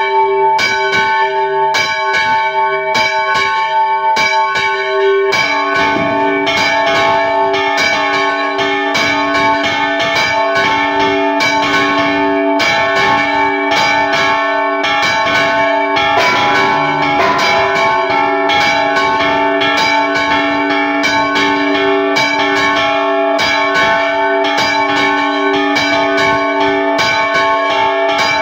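Several church bells rung in a fast festive repique, their clappers pulled by ropes, with rapid strikes several times a second and the tones of different bells overlapping, heard close up from inside the belfry. The mix of bells changes about five seconds in.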